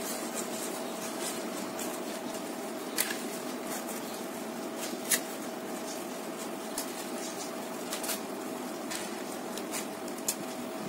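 Fresh jackfruit leaves being handled and pinned together with coconut-leaf midrib skewers: soft leaf rustling with a few sharp clicks, the loudest about five seconds in, over a steady background hum.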